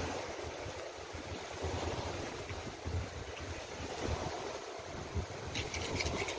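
Wind buffeting the microphone: a steady, gusty rumble with hiss. Near the end comes a quick run of crackles as the plastic dip bottle is handled and pressed against the bait.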